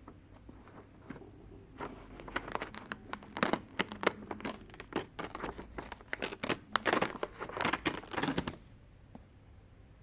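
Paper crinkling and tearing in quick, irregular crackles as a handmade paper advent calendar is opened. It starts about two seconds in and stops shortly before the end.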